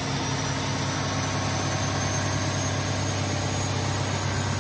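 Cummins 855 Big Cam 14-litre six-cylinder diesel running steadily under full load on an engine dyno at about 1800 RPM, fuelled on straight heated canola oil.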